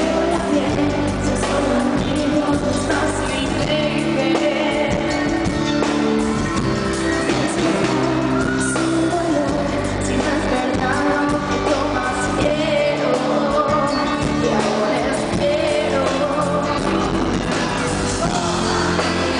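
Live pop band playing a song, with a woman singing lead into a microphone over electric guitar, drums and keyboards, loud and continuous through the concert PA.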